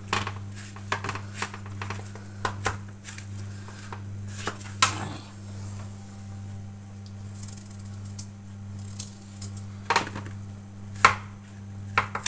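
Peeled potatoes being cut into chunks with a knife and set down in a metal roasting tray: scattered light knocks and clicks, the sharpest around ten and eleven seconds in, over a steady low hum.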